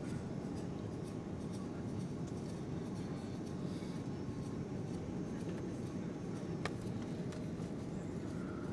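Steady low rumble of an Airbus A330's engines and airflow heard inside the passenger cabin during the landing approach. A single sharp click sounds about two-thirds of the way through.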